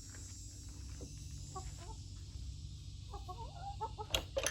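Domestic hens clucking, a scatter of short, soft clucks. Near the end, two or three sharp taps are the loudest sounds.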